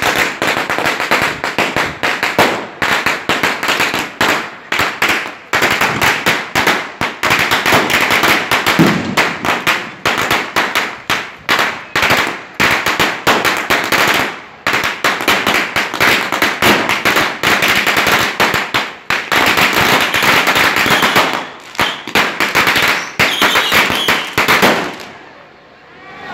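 A long string of firecrackers going off in a rapid, continuous volley of sharp cracks and bangs, which stops suddenly about twenty-five seconds in.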